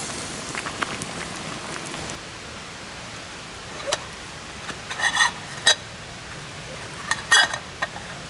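Steady hiss with scattered light crackles, typical of a campfire burning, and a few short ringing metallic clinks of cookware or utensils, loudest about five and seven seconds in.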